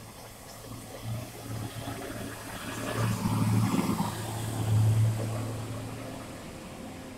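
A diesel coach bus pulling away and driving past with a low engine hum. It is loudest as it passes close about three to five seconds in, then fades as it drives off.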